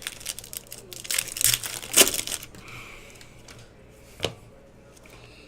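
Crinkling and rustling of trading-card pack wrappers and cards being handled, busiest in the first couple of seconds, with one sharp click a little after four seconds in.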